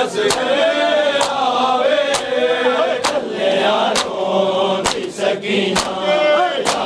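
Men chanting a noha together while beating their chests in matam: a sharp hand slap on the chest about once a second, in time with the chant.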